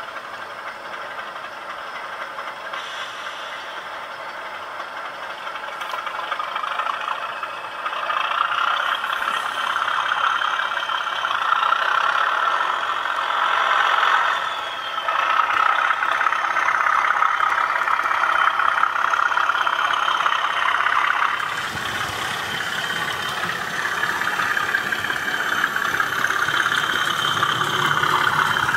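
Model Class 37 diesel locomotive running along the track: a steady whirring of its motor and wheels on the rails, growing louder about a third of the way in as it comes closer, with a lower rumble joining near the end as it passes.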